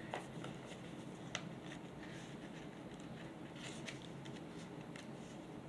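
Quiet handling of paper mini comics: soft rustles with a few faint light taps and clicks, the clearest about a second and a half in.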